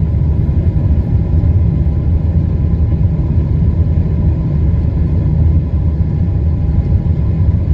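Boeing 777's GE90 engines at takeoff thrust during the takeoff roll, heard inside the cabin as a loud, steady deep rumble with faint steady tones above it.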